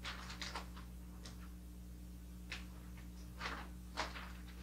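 Wrapping paper rustling and crinkling in a handful of short, separate crackles as a sheet is lifted and handled, over a steady low hum.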